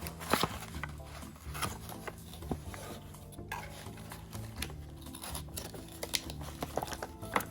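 Scattered small clicks, taps and rustles of objects being handled during a camera unboxing, sharpest just after the start and near the end, over soft background music with a steady low bass.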